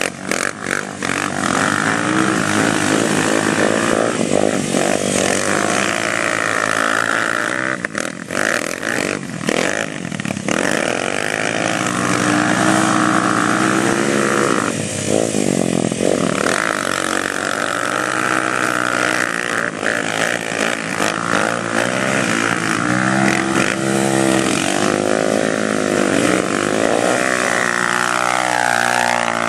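ATV engine revving up and easing off again and again as the quad is driven hard, its pitch rising and falling.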